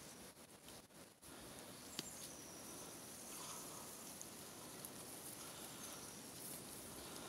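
Quiet outdoor ambience by a creek: a faint steady hiss, with a single sharp click about two seconds in and a few faint high chirps.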